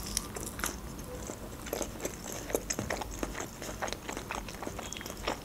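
Close-up mouth sounds of a person chewing a mouthful of food: many small, irregular wet clicks and smacks.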